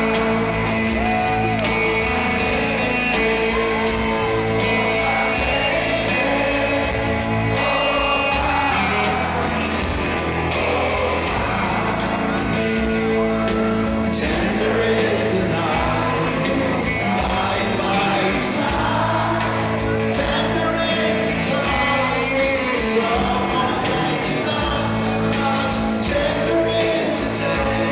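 Rock band playing live in a large hall: a lead vocal sung over guitar and the band, with shouts from the crowd.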